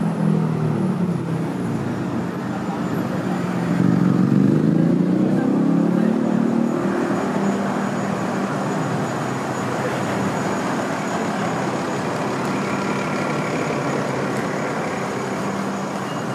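City street traffic, with a double-decker bus engine running close by that swells and shifts in pitch, loudest about four to six seconds in. After about seven seconds it gives way to a steadier hubbub of traffic and voices.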